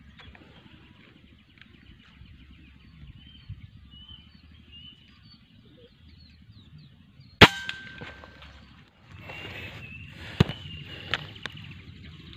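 A single air-rifle shot about seven seconds in, a sharp crack with a short ringing tone after it. Before it, faint bird chirps; after it, rustling and a few sharp clicks as the rifle is handled.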